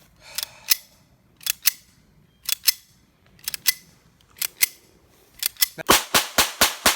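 Sharp cracks in pairs about once a second, then a rapid string of about five loud .22 LR shots in roughly a second near the end.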